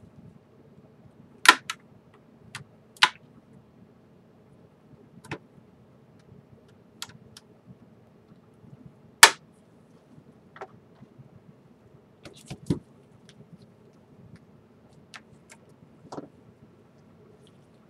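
Plastic back cover of a Galaxy Note Pro 12.2 tablet being pried off its frame with a thin pry tool: irregular sharp clicks and snaps as its retaining clips let go, a few of them much louder than the rest.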